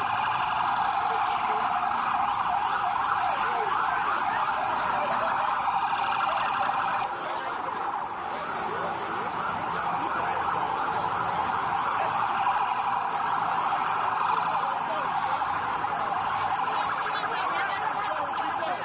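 Many emergency-vehicle sirens wailing at once, their rising and falling tones overlapping into a continuous din. The sound dips briefly about seven seconds in.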